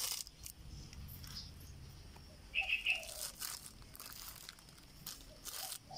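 Thin plastic grow bag of dried, hard-packed soil crinkling and crackling as a hand squeezes and handles it, with a few sharp crackles. A bird chirps briefly about halfway through.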